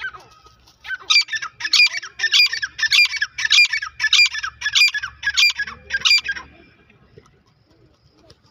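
Grey francolin calling: a run of about nine loud, shrill, evenly repeated notes, just under two a second, each led in by a short lower note. The series starts about a second in and stops about six seconds in.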